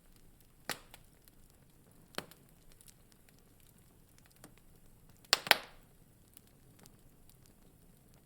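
Wood fire in a fireplace crackling: scattered sharp pops and small ticks over a faint hiss, with a louder double crack about five seconds in.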